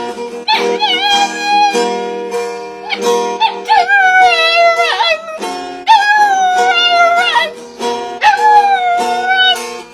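A dog howling along to a strummed acoustic guitar: about four long, wavering howls over the steady chords.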